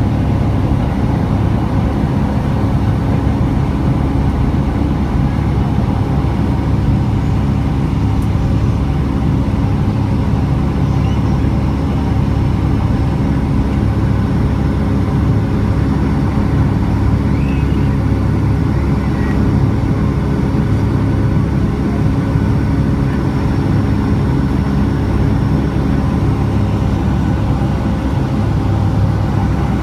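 Steady cabin drone of a Boeing 757-300 in its climb after takeoff, heard from a window seat over the wing: jet engine noise and rushing air, with a steady low hum under it.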